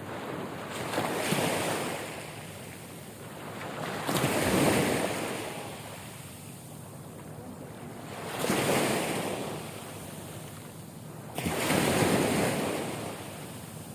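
Ocean waves breaking and washing in, four surges of rushing water a few seconds apart, the third coming in suddenly near the end.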